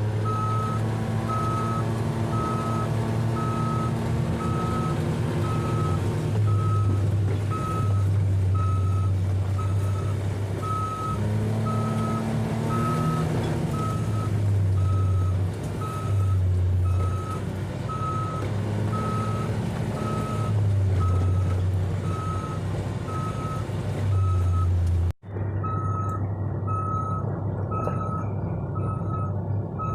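A machine's reverse alarm beeping at a steady, even rate while it backs up, over the low hum of its engine, which rises and falls.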